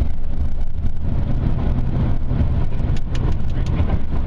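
Car interior while driving: steady low engine and road rumble, with a few faint ticks about three seconds in.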